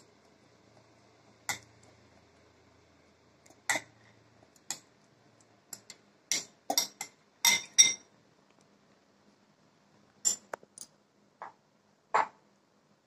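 Steel spoon and glass bowl clinking against a steel mixer-grinder jar as cut mango is spooned into it: about a dozen sharp, separate clinks, some in quick pairs, with short quiet gaps.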